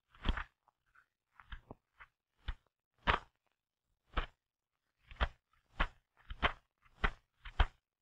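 Paper being fed into a Royal typewriter as the platen is turned by hand: a run of short, irregular clicks and crunches, about two a second.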